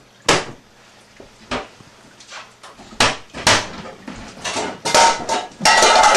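Crumpled paper bags rustling and crinkling, with several sharp knocks and clatters of things being handled. The rustling grows dense and continuous near the end.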